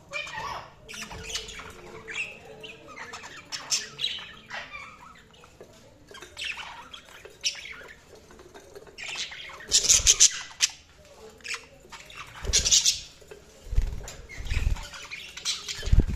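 Budgerigars chirping and squawking in a string of short, quick calls, with the loudest burst of harsh squawks about ten seconds in. A few low thumps are heard in the later part.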